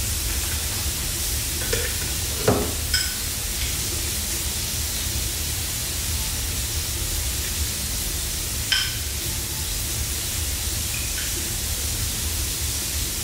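Burgers sizzling steadily on an electric griddle, with a spoon clinking against a glass bowl twice and a short knock as sauce is spooned onto the buns.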